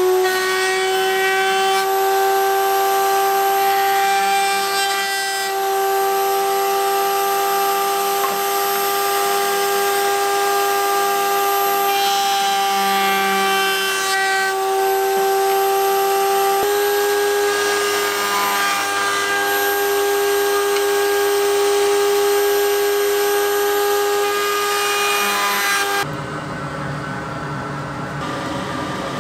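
Router in a router table running at full speed with a steady high whine, its flush-trim bit rounding the corners of plywood parts fed past it along a jig, the cutting noise rising and falling as the wood meets the bit. About 26 s in it gives way to a quieter drill press boring into plywood.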